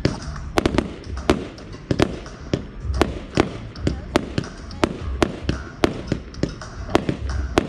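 Aerial fireworks firing and bursting in quick succession: a steady run of sharp cracks and bangs, roughly three a second, with a few deeper thumps mixed in.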